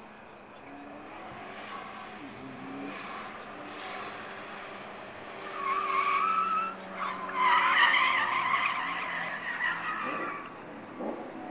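Autocross car's engine running as it drives a cone course, with its tires squealing through the turns: a short squeal about halfway through, then a longer one lasting about three seconds.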